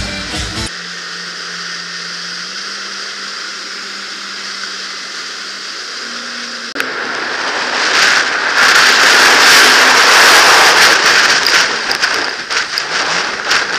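Yamaha VX Sport WaveRunner's four-stroke engine running at speed, a steady hum that steps up slightly in pitch over the rush of the hull on the water. From about seven seconds in, a much louder rush of spray and splashing with sharp knocks takes over as the craft crosses rough wake.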